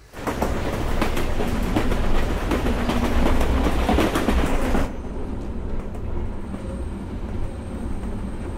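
Elevated metro train passing on its track: a loud running rumble full of rapid wheel clicks and clatter. About five seconds in it drops abruptly to the quieter, steady rumble heard riding inside a carriage.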